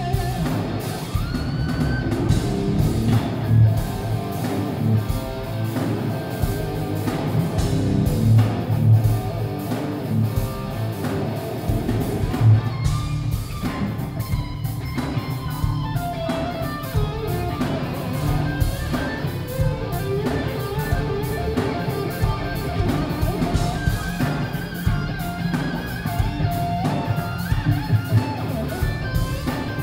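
Live instrumental rock: a lead electric guitar plays melodic lines over a drum kit and bass. It is picked up by a smartphone microphone in the audience, so it sounds muffled, with muddy bass.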